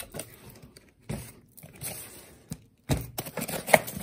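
Small cardboard box and its paper and foam packing being opened and handled by hand: irregular rustling with short knocks, louder in the last second.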